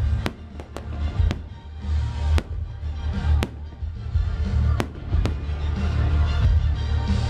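Aerial firework shells bursting in a display: about seven sharp bangs at uneven intervals, over loud music with a heavy bass.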